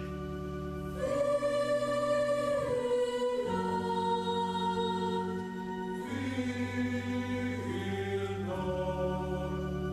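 Mixed church choir singing a carol in four-part harmony, the voices coming in about a second in and moving through slow chord changes, over held low accompaniment notes.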